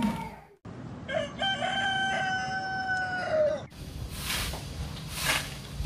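A rooster crows once, a long held call that drops in pitch at the end. Then a broom scratches across the dirt ground in strokes about a second apart.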